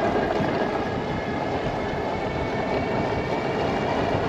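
Mokwheel Scoria electric bike riding along a concrete path: steady tyre rumble over the surface and wind buffeting the microphone, with a faint steady whine from the motor.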